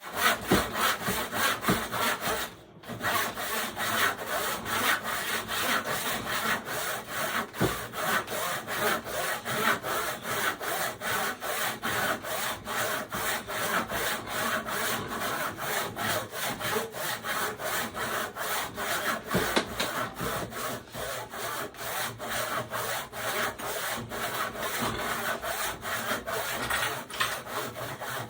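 Handsaw cutting through wood in quick, steady back-and-forth strokes, pausing briefly once near the start. The user doubts the saw is very sharp.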